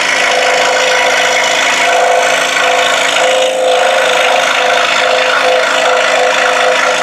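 Scroll saw running steadily, its reciprocating blade cutting an interior angle in a sapele board with a humming rasp. The sound dips briefly about three and a half seconds in.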